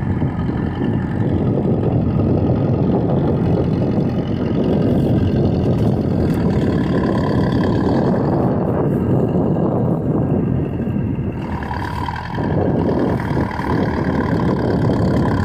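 Heavy earth-moving machine's engine running steadily under load, with a shift in its sound about twelve seconds in.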